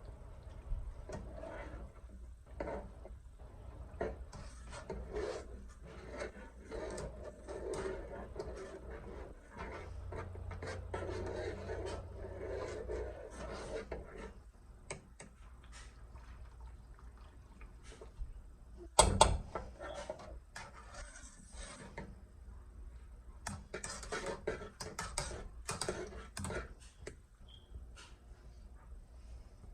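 A spoon stirring thickening atole de Maseca in a cooking pot, with irregular scraping and rubbing strokes against the pot and small clicks. About two-thirds of the way through, a single sharp knock is much louder than the rest.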